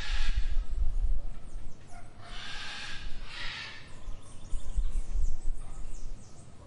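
Outdoor garden ambience: birds chirping faintly, with three loud, harsh bird calls, at the start and about two and three seconds in, over a low rumble.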